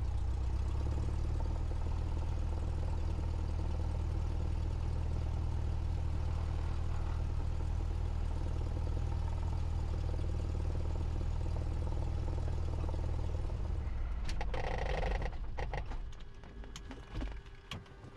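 Cessna 172's piston engine running at low taxi power with a steady low drone. About fourteen seconds in, the drone drops away, followed by a few sharp clicks.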